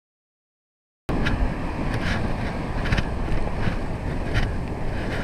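Wind buffeting the microphone on a moving bicycle, over tyre noise on wet tarmac, starting suddenly about a second in. A short hiss recurs about every three-quarters of a second.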